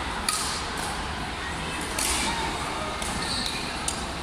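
Badminton rackets striking a shuttlecock during a rally: a few sharp hits spaced irregularly, echoing in a large hall, over a background of chatter.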